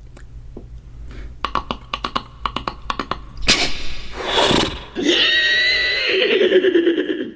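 Cartoon sound effects: a quick run of sharp clicks, then a loud whooshing burst about three and a half seconds in, then a wavering high-pitched whine that cuts off suddenly.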